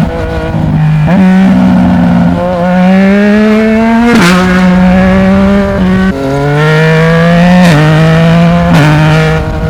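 Yamaha MT-09's three-cylinder engine through a Black Widow aftermarket exhaust, ridden and pulling through the gears. The pitch rises under acceleration and drops sharply at each gear change, several times.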